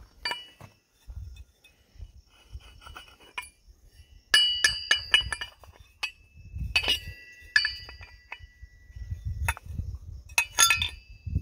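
Rusty metal V-belt pulleys clinking and knocking against each other as they are handled and fitted together, several strikes ringing briefly. The clinks come in clusters, loudest about four seconds in, around seven seconds, and near the end.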